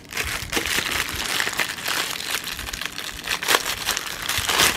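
Packaging crinkling and rustling as it is handled and pulled open, a steady run of crackles with two louder crinkles, one about three and a half seconds in and one near the end.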